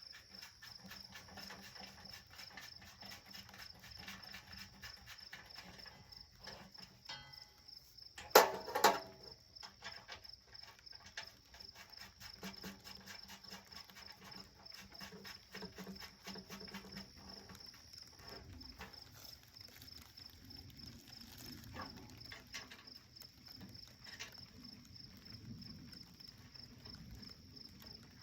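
A steady, high-pitched, rapidly pulsing insect trill, with small clicks and knocks from handling the woodstove parts. Two sharp knocks, about eight and nine seconds in, are the loudest sounds.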